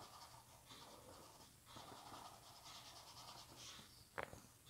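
Faint scratching of a small paintbrush stroking oil paint onto canvas, in several short passes, with one brief soft tick about four seconds in.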